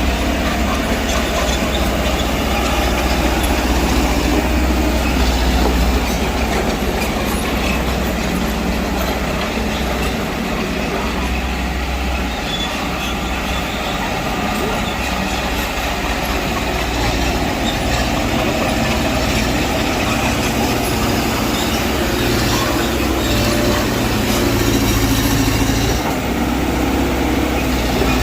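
Mitsubishi BD2G bulldozer's diesel engine running steadily under work, with metal track noise from the crawler.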